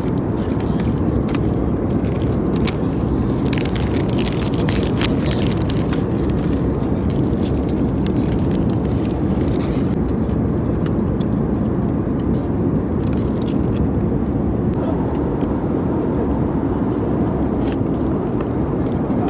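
Steady airliner cabin noise in flight: an even, low rush of engine and airflow noise, with a few faint clicks over it.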